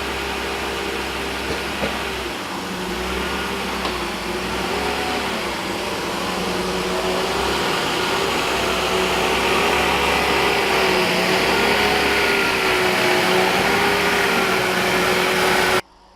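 Vacuum cleaner running steadily, its motor pitch wavering up and down as the nozzle is worked, likely valeting the car's interior; it cuts off abruptly near the end.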